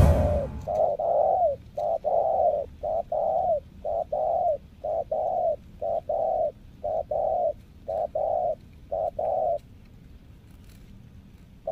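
Spotted dove cooing: a steady series of about nine coo phrases, roughly one a second, each a short note running into a longer one. The calling stops near the end.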